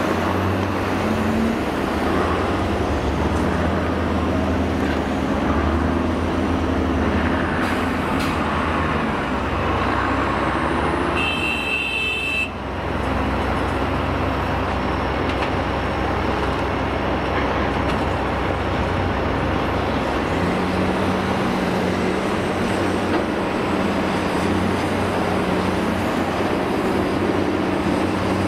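Diesel engines of a Cat tracked hydraulic excavator and a Cat articulated dump truck running steadily while the excavator digs and loads the truck; a new steady lower tone sets in about two-thirds of the way through. A short horn blast sounds about eleven seconds in.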